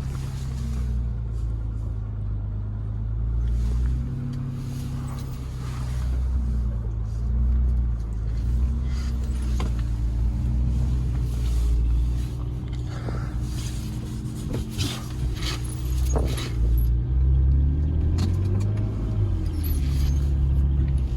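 BMW E36 car engine running at low speed while the car is moved, its steady hum swelling and easing a little and rising in pitch near the end.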